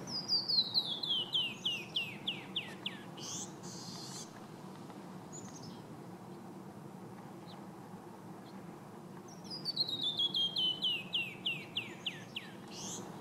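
Canyon wren singing twice: each song a cascade of about fifteen clear whistled notes that fall steadily in pitch and slow down, lasting about three seconds. The second song starts about nine and a half seconds in.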